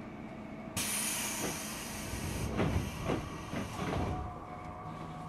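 205-series commuter train's pneumatic doors closing: a sudden loud hiss of compressed air about a second in, with several knocks as the doors slide and bump shut over the next few seconds, then a faint steady hum.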